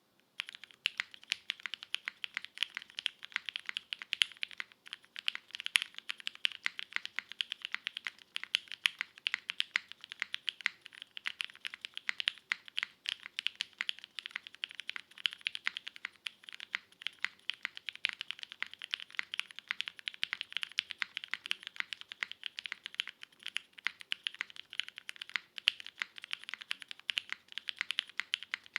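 Fast, steady typing on a Keycult No. 2/65 mechanical keyboard: lubed linear switches (Cherry MX Hyperglide housings with Kailh black stems) on a full aluminium plate, with GMK keycaps. The typing starts about half a second in.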